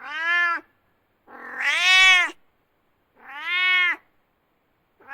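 Domestic cat meowing: three drawn-out meows roughly a second apart, each rising and then falling in pitch, the middle one the loudest.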